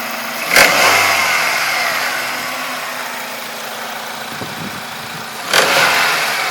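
Honda K20A four-cylinder engine idling and revved twice with quick throttle blips, about a second in and near the end, each time the revs dying away back to idle. The owner is hunting an unexplained knock in this engine.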